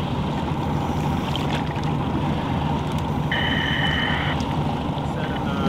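Inflatable boat's outboard motor idling steadily. About three seconds in, a steady high beep sounds for about a second.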